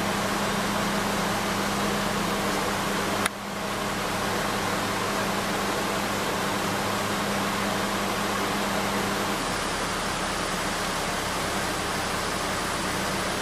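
Steady loud hiss with a low hum underneath. A sharp click and brief dip come about three seconds in, and the hum drops out about nine seconds in.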